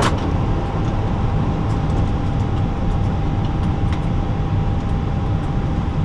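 Steady cockpit noise of an Airbus A320 parked at the gate: a low rumble with a constant high hum from the aircraft's running systems. A sharp click right at the start and a faint click about four seconds in, as a switch on the overhead panel is worked.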